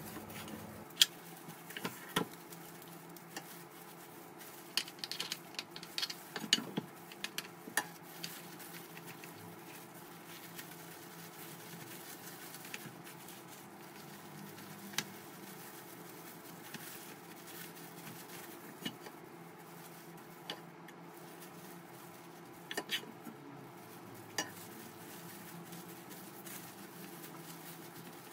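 Kitchen handling sounds: scattered sharp clicks and knocks from utensils and a metal Spam can, with plastic gloves rustling. They come thickest in the first eight seconds and then only now and then, over a steady low hum.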